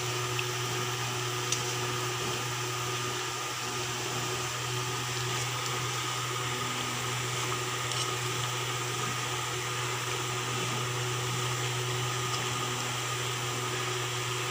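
A steady low mechanical hum from a small motor, even throughout, with two or three faint light ticks of a spatula against the pan as the curry is stirred.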